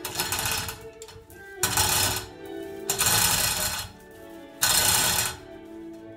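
Manual chain hoist being hauled hand over hand to lower a suspended engine, its chain rattling through the block in four pulls about a second and a half apart. Background music plays underneath.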